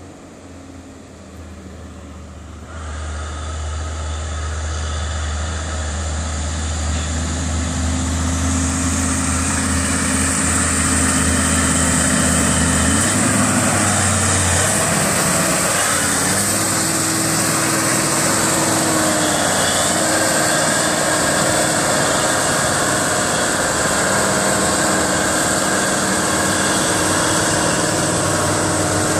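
Loaded Mercedes-Benz 3836 log truck's diesel engine pulling towards and past, growing louder as it comes closer. The engine note changes about halfway through, under a steady hiss of tyres and noise from the load.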